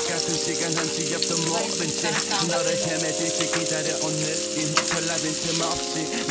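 Beef sirloin steak sizzling in hot oil in a frying pan, with a few sharp clicks from metal tongs. Background music plays underneath.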